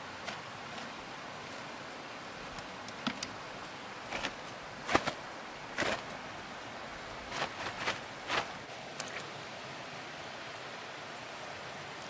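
Steady rush of running stream water. From about two and a half seconds in to about nine and a half seconds, a dozen or so short, sharp noises cut through it in small clusters, the loudest about five seconds in.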